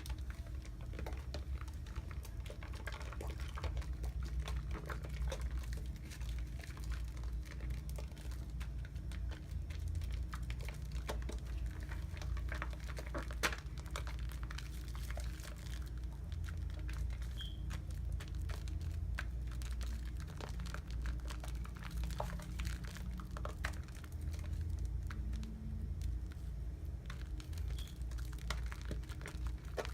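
Irish Spring soap being worked into a wet lather: close, irregular soft crackling and squishing of suds, with many small clicks and no steady rhythm, over a faint low hum.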